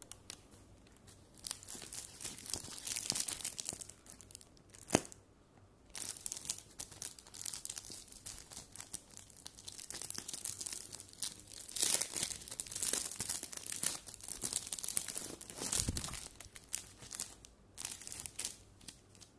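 Clear plastic packaging crinkling and rustling in bursts as it is handled and pulled open, with a sharp click about five seconds in.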